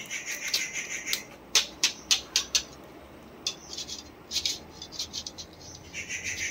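Hand work on the parts of a power amplifier being dismantled: high-pitched scraping and rubbing, a quick run of about five sharp clicks starting about a second and a half in, then more scraping and clicks.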